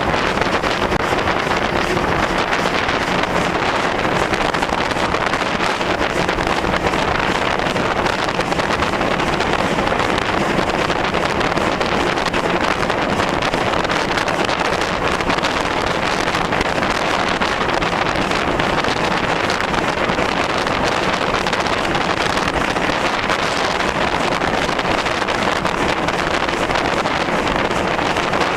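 Steady rush of wind buffeting the microphone, mixed with the running noise of an Ivatt steam locomotive moving at speed.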